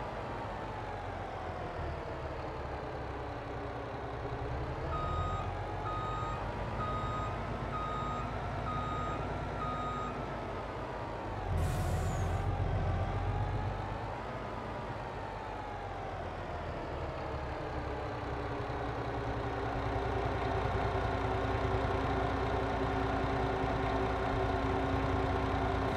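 Truck diesel engine running with its speed rising and falling while manoeuvring, as a reversing alarm beeps about once a second for several seconds. Around twelve seconds in comes a short hiss of air from the air brakes.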